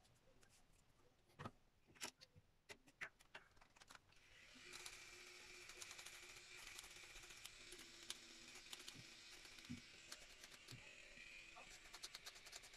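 Faint handling clicks from a small electric trimmer, which then starts running about four and a half seconds in with a steady hum. Light clicks go on over the hum as it is worked over the beard.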